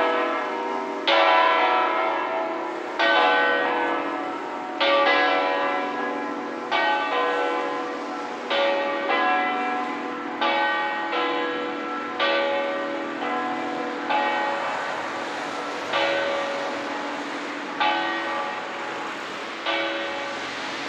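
Church tower bells swinging and ringing, with a strike about every two seconds. Each strike rings on over a lingering hum, and the strikes grow gradually weaker as the ringing dies down.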